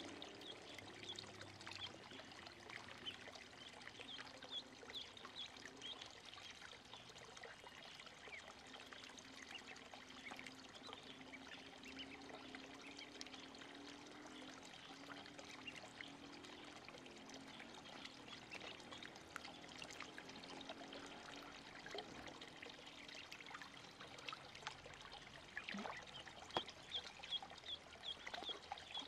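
Ducklings paddling and dabbling in shallow water, a quiet run of small splashes and trickling, with a run of short high peeps near the end.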